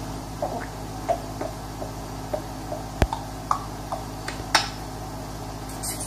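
Parrot making scattered soft clicks and short chirps, with one sharp click about halfway through and a quick rising whistle-like chirp soon after, over a steady electrical hum.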